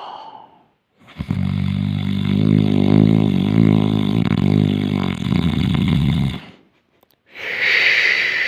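A person snoring: one long, deep snore lasting about five seconds. After a short pause near the end, a high, wavering whistle-like sound begins.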